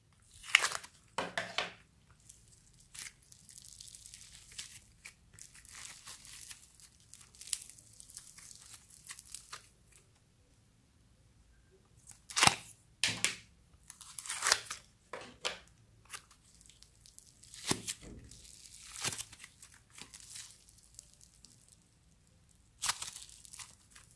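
Foam-bead clay handled in its plastic tub: several sharp plastic clicks and crunchy crackling as the clay is pulled out, with a quieter crinkly rustle in between.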